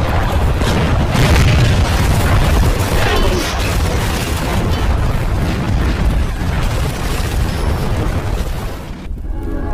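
Battle sound effects: repeated explosions and booms over a continuous heavy rumble, with a short falling whistle about three seconds in. The din cuts off abruptly near the end.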